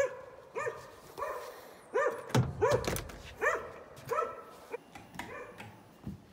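A dog barking repeatedly: about a dozen short, high barks, one or two a second, with a low thump about two and a half seconds in.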